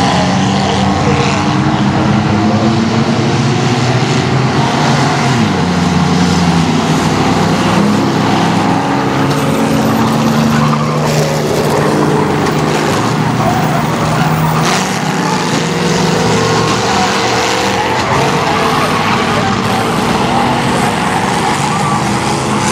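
A pack of old cars racing on a short oval, joined nose to tail in trains, with many engines running hard at once. Their overlapping pitches rise and fall as they accelerate and lift through the turns.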